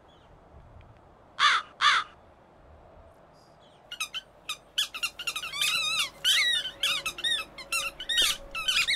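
A crow cawing twice, about a second and a half in. Then, from about four seconds, a rapid run of many high squeaks from rats.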